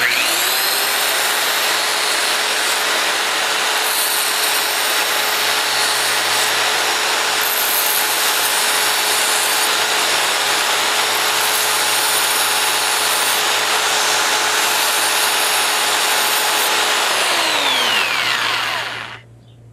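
Corded DeWalt drill spinning up and running steadily while a jackknife blade is ground against the abrasive it drives: a steady hiss over the motor's whine. The drill is switched off near the end and winds down.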